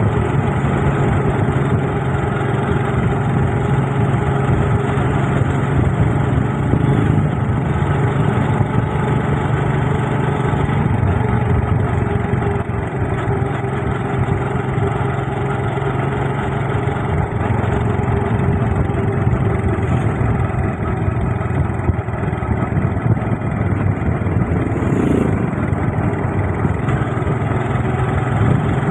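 Motorcycle engine running steadily at cruising speed, heard from the bike itself, mixed with wind and road rush.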